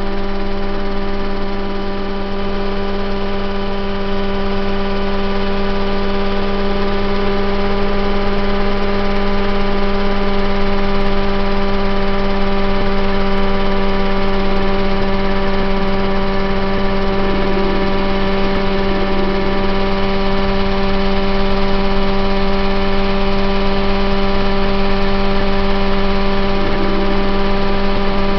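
Engine of a Mosquito ultralight helicopter running steadily in flight, heard from on board, its pitch holding constant throughout.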